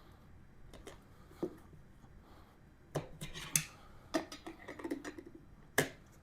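Clicks, knocks and short scrapes of hand-work on a motorcycle tire and wheel rim as the tire is being fitted, with the sharpest knocks about three seconds in and near the end.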